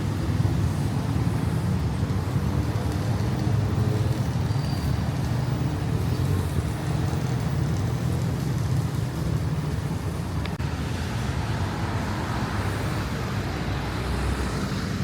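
Road traffic noise: a steady low rumble of passing vehicles on a city street.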